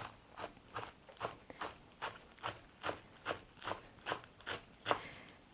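Kitchen knife chopping leafy greens by hand on a cutting board, a steady rhythm of about two to three crisp strokes a second.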